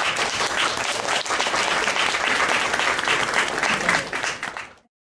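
Audience applauding, a dense steady clapping that fades slightly and then cuts off abruptly near the end.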